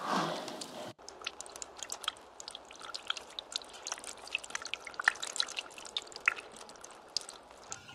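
Water dripping: many small, irregular drops plinking one after another. This starts after a sudden cut about a second in.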